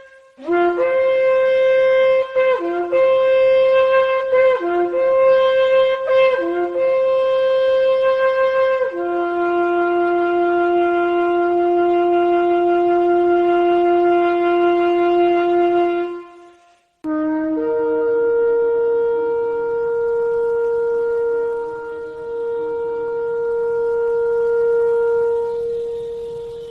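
Shofar blasts: a run of about five short broken notes, each jumping from a low tone up to a higher one, then a long steady low blast and, after a brief break, a second long steady blast on a higher note.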